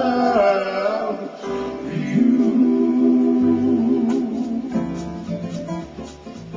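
A man singing a slow, mellow ballad over guitar, holding a long note on the word "you"; near the end the voice drops out and the guitar carries on alone with picked notes.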